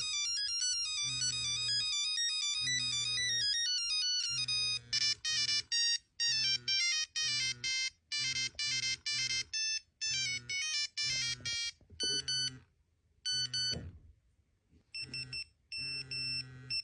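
Nokia mobile phone ringtones playing one after another as short electronic melodies of stepped beeping notes. A flowing tune gives way after about five seconds to choppier phrases of quick notes, and groups of short repeated beeps come near the end.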